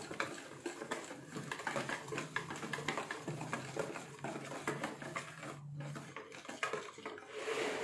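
Metal wire whisk beating a yogurt and spice marinade in a plastic bowl: rapid, continuous clicking and tapping of the wires against the bowl, with a short pause a little past halfway.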